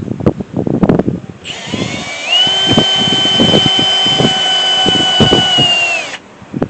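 A series of sharp clicks and knocks, then a power drill running steadily for about four and a half seconds with a high whine. The whine climbs as the drill comes up to speed and sags as it stops.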